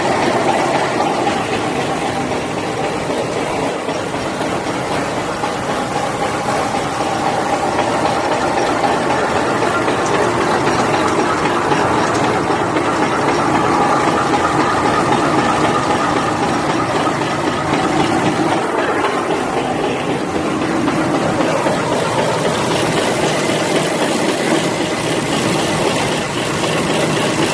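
Wet-wipe bulk-pack packaging machine running steadily, a dense, even mechanical din with a hiss.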